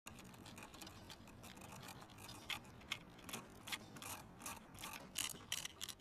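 A needle scratching and picking at a thin disc of dalgona honeycomb sugar candy in a metal tin, carving along the stamped shape: a series of short, faint scrapes that come faster, about two a second, in the second half.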